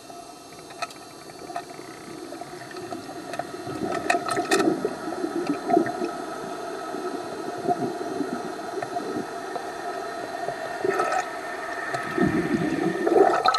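Underwater sound: a steady hum from the boat's idling outboard motors over water noise, with a few sharp clicks in the first half. About twelve seconds in it turns to louder sloshing and bubbling as the camera nears the surface.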